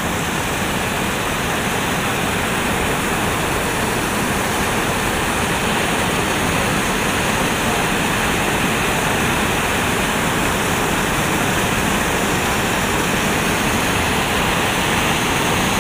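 Swollen, muddy river water pouring over a weir and rushing between rocks: a steady, unbroken rush of water.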